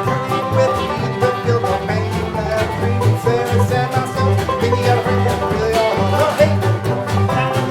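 Instrumental string-band music in a bluegrass style: banjo and guitar picking over a steady, pulsing bass line, without singing.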